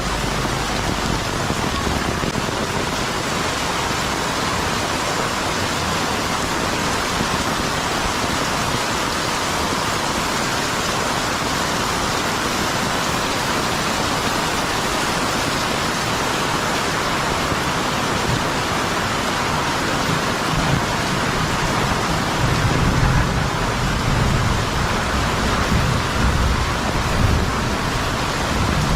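Heavy rain pouring steadily. A low rumble swells and fades several times in the last few seconds.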